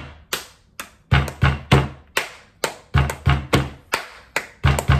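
Hand drumming on a hard surface in the style of school-bench drumming: a steady rhythm of deep thumps and sharp slaps, about three beats a second.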